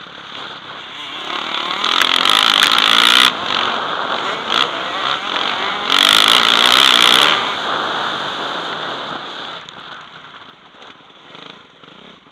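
Motocross bike engine heard through a helmet camera, revving hard under full throttle twice with a rush of wind, then easing off and dropping in level near the end.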